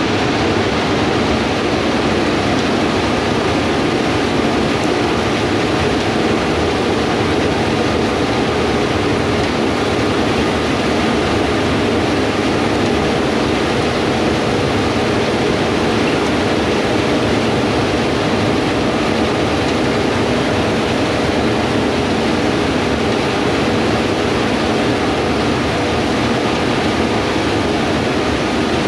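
Heavy diesel farm machinery running steadily in the field: a constant engine drone with a faint steady hum and no change in pace.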